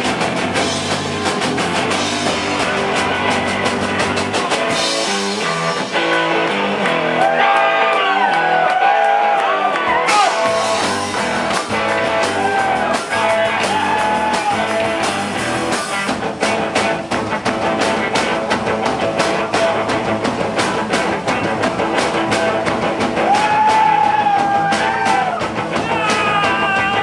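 Rock band playing a song live, electric guitar over a drum kit, with a lead melody line bending and sliding over it from about seven seconds in.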